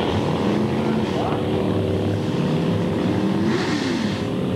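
Car and motorcycle engines running, several steady engine tones at once, with a brief rise and fall in pitch about three and a half seconds in.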